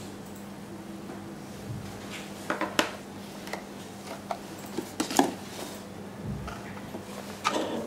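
Handling sounds of a smartphone battery and a cardboard phone box being set down and moved on a table: a series of clicks, taps and knocks, the loudest about five seconds in. A faint steady hum runs underneath.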